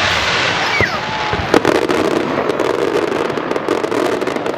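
Fireworks display: dense crackling, with a sharp bang about one and a half seconds in and scattered pops.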